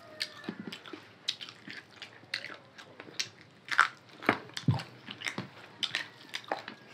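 Two people chewing mouthfuls of rice and chicken curry eaten by hand, heard up close as irregular short clicks, a few of them louder about four seconds in.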